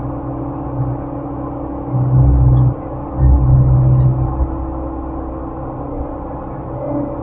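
Excavator's diesel engine running steadily, heard from inside the operator's cab, with two louder low surges about two and three seconds in.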